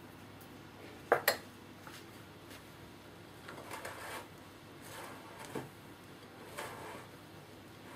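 A metal spoon clinks twice against a glass mixing bowl, then a spatula makes soft scraping and folding sounds as it works flour into whipped egg-and-sugar batter.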